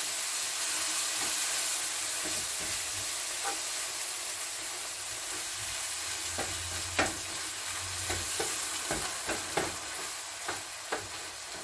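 Omena (Lake Victoria sardines) sizzling steadily in a frying pan with milk just poured in for a gravy, easing off a little toward the end. A wooden spoon stirs through, tapping and scraping the pan now and then, more often in the second half.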